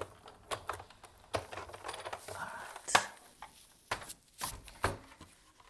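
Sizzix Big Shot die-cutting machine cranked through its last turn, then its plastic cutting-plate sandwich pulled out and set down with a series of sharp clacks and knocks, the loudest about three seconds in.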